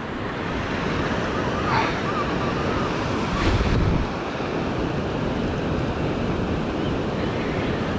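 Ocean surf breaking and washing up the beach, a steady rushing noise, with a low rumble on the microphone about three and a half seconds in.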